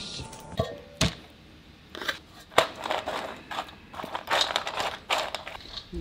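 Shopping being handled and unpacked: rustling of bags and packaging, with several sharp knocks as items are set down, the loudest about two and a half seconds in.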